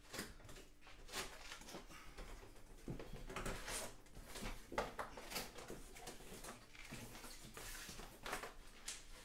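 Cardboard box being opened by hand: faint, irregular rustling and scraping of the flaps, with scattered light knocks and a card being pulled out.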